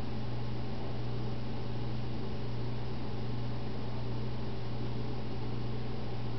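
Steady low hum under an even hiss, with no distinct sounds.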